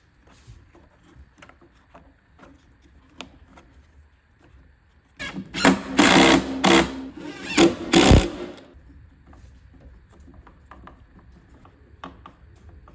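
A small power tool's motor runs in several short, loud bursts over about three seconds midway through, like a cordless driver running in screws, with light clicks and handling of parts before and after.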